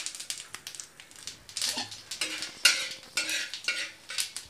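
Mustard seeds and a broken dried red chilli sputtering in a little hot oil on a tawa, crackling with many quick pops. From about halfway a metal spatula scrapes and stirs across the pan.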